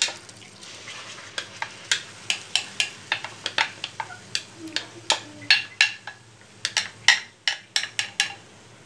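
Peach purée being emptied from a bowl into a pan: a utensil knocks and scrapes against the bowl in a run of irregular sharp clicks, over a light sizzling hiss.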